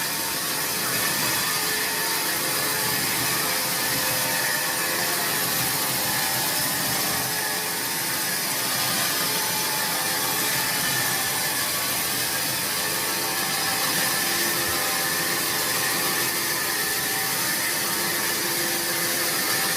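A woodworking power tool running steadily without a break: a continuous mechanical whir with a hiss.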